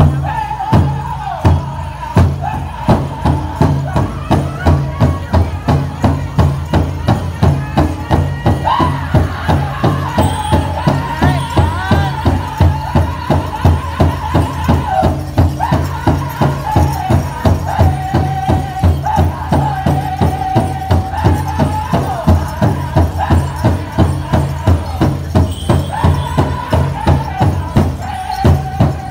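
Powwow drum group singing a chicken dance song: a big drum struck in a steady, fast beat under high held voices, with dancers' bells jingling along.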